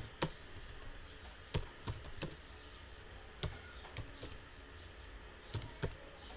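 Computer keyboard keys typed slowly and unevenly, with single sharp clicks spaced a fraction of a second to about a second apart.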